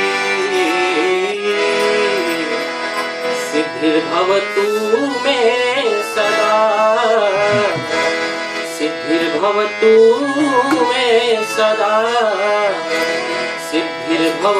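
Fiji kirtan (Hindu devotional song): a harmonium plays sustained reedy chords and a man sings the melody over it, with a dholak drum keeping the beat.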